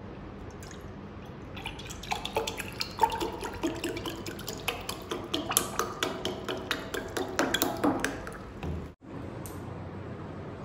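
Fruit juice pouring from a spouted carton into a glass, in an uneven run of splashes that is loudest from about two to eight seconds in, then cuts off suddenly.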